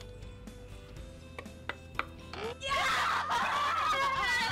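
A few light taps, then about two seconds in a child's high-pitched shriek, wavering and squealing, lasting about two seconds.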